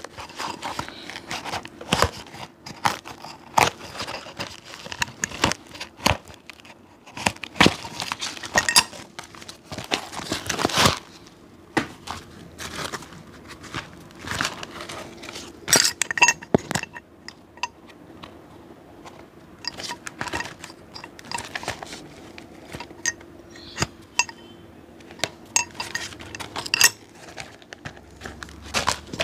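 A cobbler's hand tools clicking, tapping and scraping against a shoe in irregular strokes, with a denser stretch of scraping about eight to eleven seconds in, over a faint steady hum.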